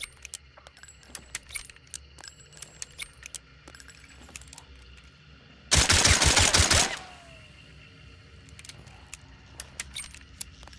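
A rapid string of about seven suppressed gunshots from a Nagant M1895 revolver, fired in just over a second about halfway through. Scattered small metallic clicks and jingles come before and after.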